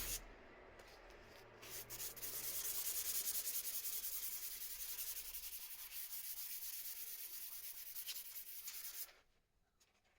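Hand sanding body putty with an abrasive sheet: quick, even back-and-forth scraping strokes that start about two seconds in and stop suddenly near the end.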